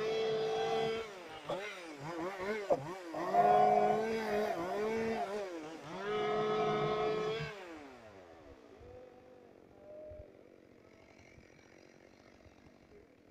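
Two-stroke chainsaw revved high in several bursts of a second or two, the pitch dipping between them. About seven and a half seconds in, the engine winds down and goes faint.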